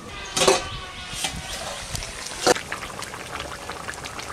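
Thick curry of chicken feet and potatoes bubbling and simmering in a karahi over a wood fire, a steady patter of small pops. A few sharp clinks and knocks stand out, the loudest about two and a half seconds in.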